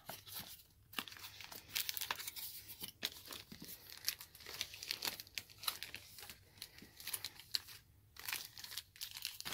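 Clear plastic packaging bag rustling and crackling irregularly as hands unwrap a toy suitcase and pull it out of its cardboard box.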